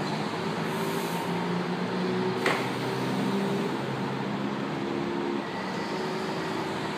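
Metro train standing at the platform, its equipment giving a steady hum of several tones that shift in steps. A short hiss comes just under a second in, and a single sharp click about two and a half seconds in.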